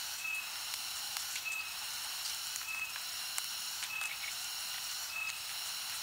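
Faint high hiss with several held high tones and a short high beep repeating about every 1.2 seconds: the quiet ambient tail of a cinematic music track after the main music has stopped.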